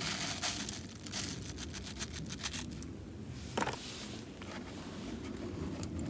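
Ground coffee poured from a scoop into a paper drip filter in a metal cup, with the paper filter crinkling and rustling as it is handled. There is one dull knock about three and a half seconds in.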